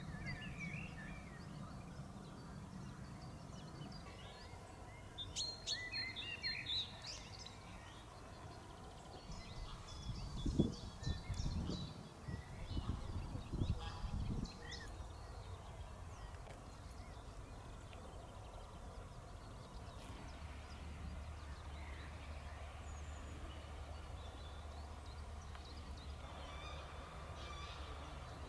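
Birds calling and chirping over a steady low background hum, the calls thickest about five to seven seconds in. A few low thumps about ten seconds in are the loudest sounds.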